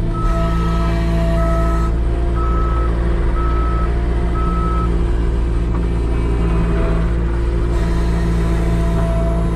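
New Holland 328 skid steer's engine running steadily, heard from inside the cab. Its reversing alarm beeps five times, about once a second, then stops about halfway through.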